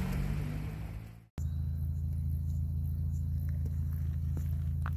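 Low engine drone of a Volkswagen Kombi van heard from inside while driving, with road and wind hiss. About a second in the sound fades and cuts out for a moment at an edit, then a steadier low engine hum carries on.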